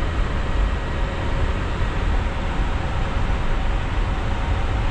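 Steady rushing rumble inside an Airbus A350 cockpit in flight: airflow and air-conditioning noise, with a faint steady hum over it.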